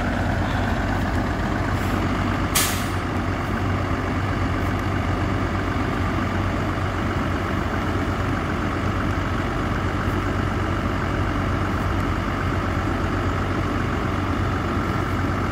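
Heavy truck engine running steadily with an even low drone, and one brief sharp burst of noise about two and a half seconds in.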